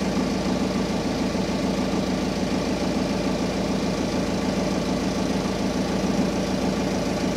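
Diesel generator set running steadily at constant speed: an even, unchanging engine drone.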